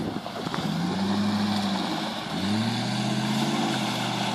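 Land Rover Discovery engine revving under load as it drives through and climbs out of a deep muddy rut: the revs rise about half a second in, drop back about two seconds in, then rise again and hold.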